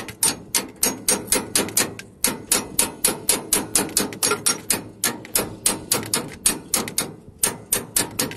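Hammer striking metal in a fast, steady rhythm, about five blows a second, with a brief pause about two seconds in.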